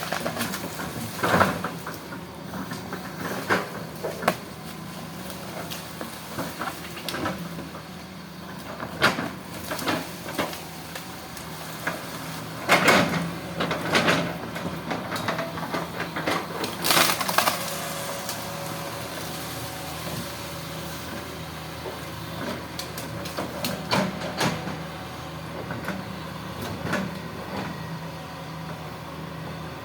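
Hitachi hydraulic excavator working: its diesel engine runs steadily under a low hum while the bucket and arm give irregular knocks and clanks as they dig and move mud.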